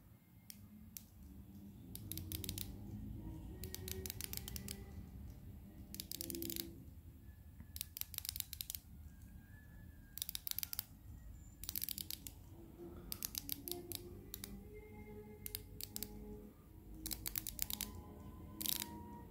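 The unidirectional rotating diver's bezel of a Seiko Prospex Tuna watch being turned, ratcheting in about ten short runs of rapid clicks, over soft background music.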